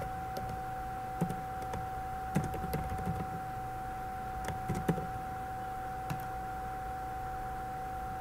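Scattered clicks of a computer keyboard and mouse, typing in a file name and clicking through a save, over a steady high-pitched electrical whine.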